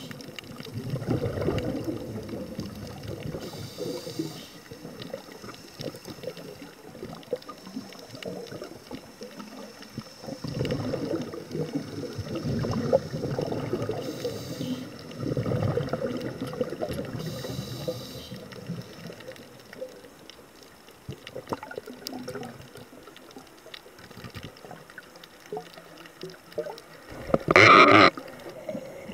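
Underwater sound of a scuba diver breathing: exhaled air bubbling and gurgling in irregular swells every few seconds, with a few short hisses of inhalation through the regulator, and one loud rush of bubbles near the end.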